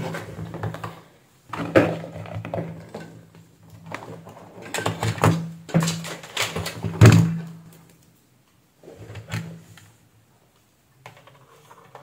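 Knocks and clunks of handling as the hair dryer and a multimeter are set down and moved on a concrete floor, with a low hum that comes and goes underneath.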